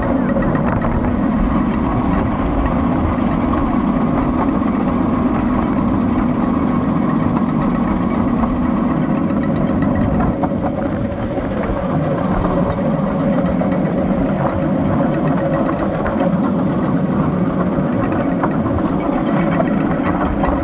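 A railcart's engine running steadily at an even pitch as the cart rides along the rails.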